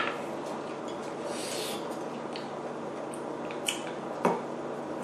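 Close-miked eating: a few sharp clicks of utensils against a dish, the loudest near the end, amid chewing sounds, over a steady low background hum.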